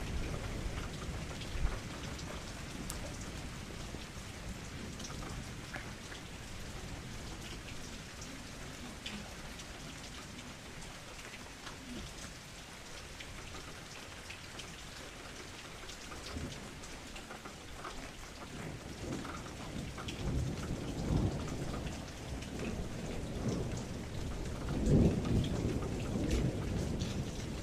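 Steady rain pattering, with scattered individual drops, and low rolling thunder that swells in the last third and is loudest a few seconds before the end.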